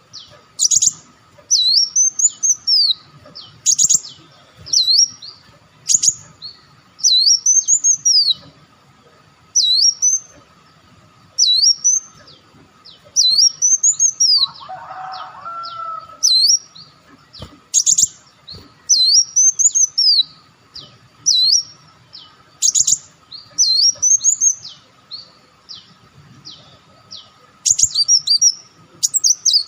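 Sunbird song: high, sharp chips and short arched whistled phrases repeating every second or two, with a brief lower-pitched call about halfway through.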